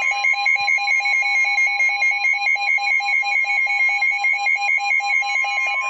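Weather radio tornado-warning alert: a steady warning tone near 1 kHz, the NOAA Weather Radio alarm that comes before a warning message, sounding together with a fast pulsing electronic beep of about six beeps a second.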